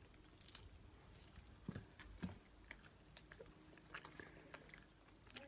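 Faint biting and chewing on a Slim Jim meat stick, with a few soft scattered clicks and mouth smacks.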